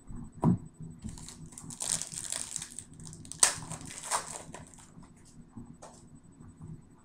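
Foil wrapper of a trading-card pack crinkling and crackling as it is handled and torn open, with a soft thump about half a second in and the sharpest crackle about three and a half seconds in.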